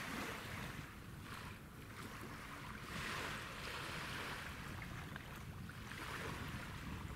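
Small waves lapping in soft surges about every three seconds, over a steady low rumble.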